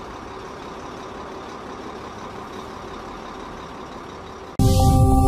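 Steady outdoor background noise, an even hiss and rumble with no distinct events. Near the end, loud music cuts in abruptly.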